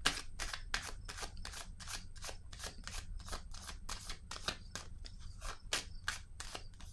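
A deck of cards being shuffled by hand: a steady run of short, crisp card clicks, about three or four a second.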